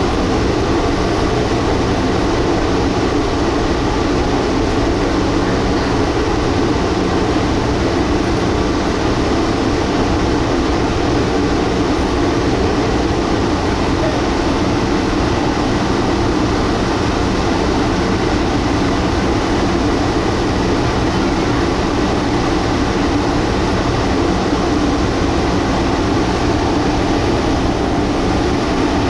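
Cruise boat's engine running steadily at cruising speed, a constant low drone with hull and water noise, heard from on board.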